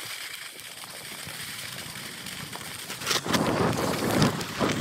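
Skis running over snow during a downhill run, heard sped up to double speed: a steady hiss that turns louder and rougher after about three seconds.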